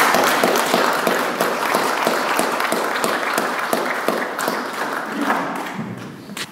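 Congregation applauding a welcome: many hands clapping, loud at first and fading away over several seconds.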